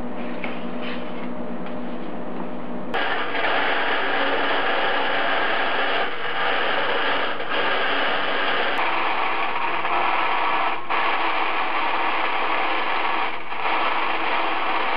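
Vertical bandsaw cutting stainless steel sheet: a steady, loud rasping hiss that starts abruptly about three seconds in, with a few brief dips as the cut is fed. Before it there is a steady hum with faint clicks.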